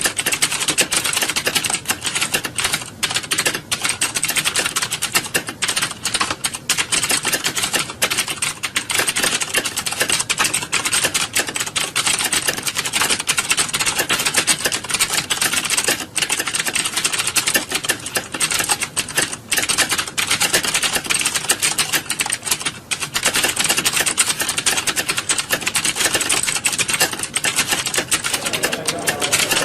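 Dense, unbroken clatter of many keyboards being typed on at once, the overlapping key clicks of a room full of typists.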